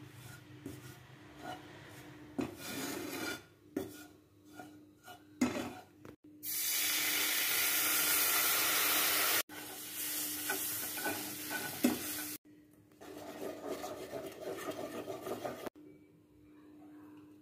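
A spatula stirring and scraping in a nonstick frying pan while food sizzles in hot oil. About six seconds in, a loud, even sizzle lasts about three seconds. The sound breaks off abruptly several times at edits.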